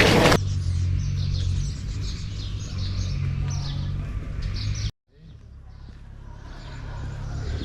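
A loud rushing noise cuts off half a second in. Small birds then chirp and sing in short repeated phrases over a steady low rumble. The sound drops out abruptly about five seconds in, and birdsong with rumble fades back in.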